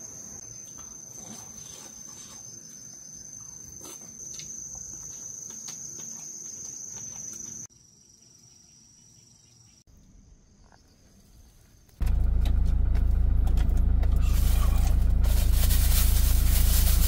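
Crickets chirping steadily with a thin high trill. About twelve seconds in, a loud, steady low engine rumble takes over: the motorhome's engine idling, heard from inside the cab, with plastic-bag rustling near the end.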